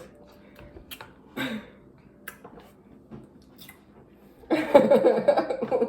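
A person eating spicy ramen noodles: chewing and slurping, with scattered mouth clicks and smacks and a short murmur about a second and a half in. Then, about four and a half seconds in, a loud vocal outburst lasting over a second.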